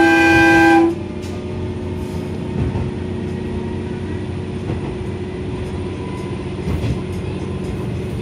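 Diesel railcar's horn sounding one blast of about a second, the warning given before an unguarded level crossing. After it the railcar runs on steadily, its engine humming and wheels running on the rails, heard from inside the cab.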